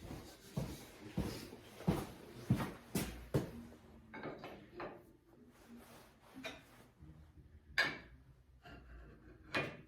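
Steel pieces being handled and set into a welding jig: irregular clanks and knocks of metal on metal, a few sharp ones standing out.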